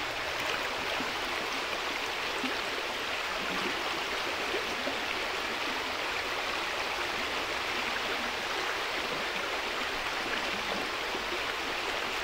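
Shallow stream running over rocks and stones: a steady rush of flowing water.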